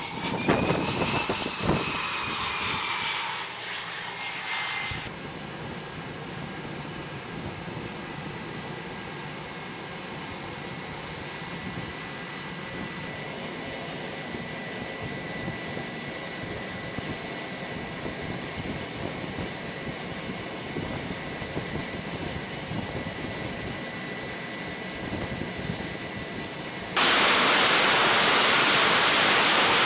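The twin General Electric F414 jet engines of an F/A-18F Super Hornet. At first they make a turbine whine whose high tones bend up and down. After about five seconds this drops to a steadier, quieter whine while the jet sits on the catapult. About 27 seconds in, a sudden, much louder roar sets in as the engines are run up to full power for the catapult launch.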